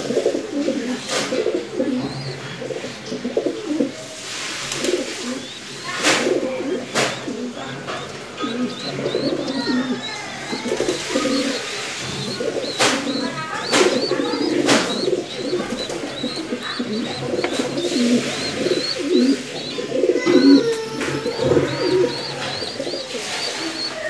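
Many domestic pigeons cooing together in their loft: a steady mass of low, overlapping coos. A few sharp clicks sound in the first half, and quick, faint high chirps join in from about a third of the way through.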